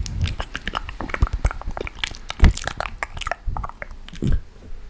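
Close-miked ASMR mouth sounds: a quick, uneven run of wet clicks, pops and smacks, with two louder pops about two and a half and four and a quarter seconds in.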